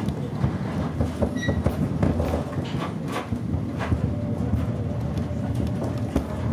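Aoi Mori Railway electric train running, heard from the driver's cab: a steady low rumble of wheels on rail, broken by irregular clicks and knocks. A faint steady hum joins about four seconds in.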